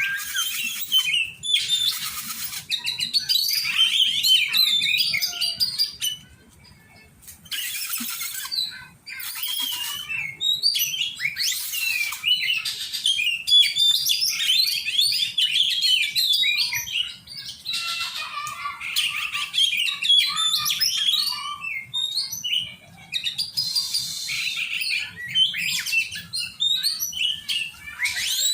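Oriental magpie-robin (kacer) singing: a varied run of rapid whistled and warbled phrases mixed with short harsh, rasping bursts, with a brief pause about six seconds in.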